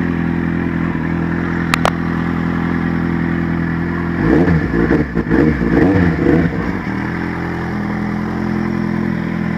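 Kawasaki Z750 inline-four engine idling, with the throttle blipped about four seconds in so the revs rise and fall for a couple of seconds before settling back to idle. A sharp double click comes a little before that. The owner says the tick from an exhaust leak at the cracked header pipe, which sounds like valve tapping, is very faint.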